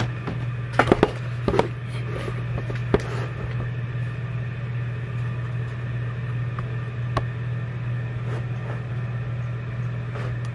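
A steady low hum, with a cluster of short knocks and handling noises about a second in, another around three seconds in and a single click near seven seconds.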